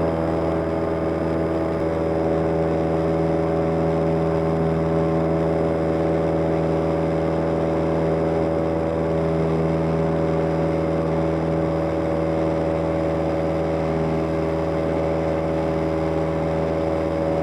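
Cessna 172M's four-cylinder Lycoming engine and propeller droning steadily in the climb, heard from the cockpit.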